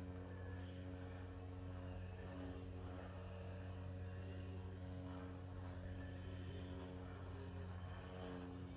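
A faint, steady mechanical hum made of several low tones, unchanging throughout.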